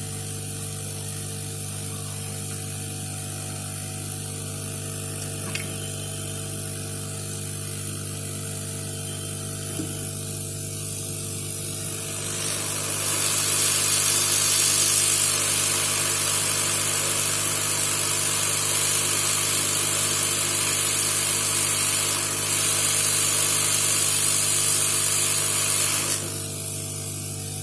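Hot-air rework blower running with a steady motor hum while it heats a diode on the motherboard to desolder it. About halfway through, a louder rush of air sets in for about fourteen seconds, then drops back.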